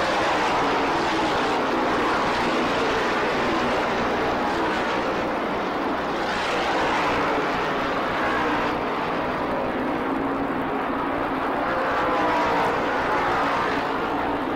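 NASCAR Modified race cars' V8 engines running at speed as a pack laps the track, several engine notes overlapping in a steady drone. The pitch swells and falls as cars pass, most clearly about halfway through and again near the end.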